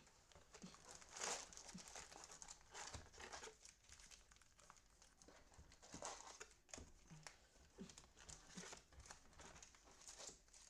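Faint crinkling and rustling of trading-card pack wrappers and cards being handled, coming in irregular short spells.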